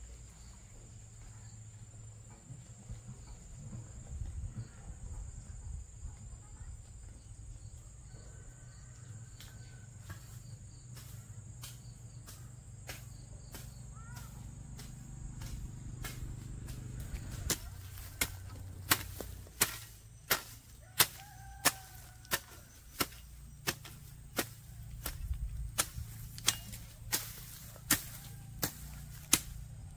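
Sharp strikes repeating about three every two seconds, faint at first and much louder from a little past halfway, over a low steady rumble.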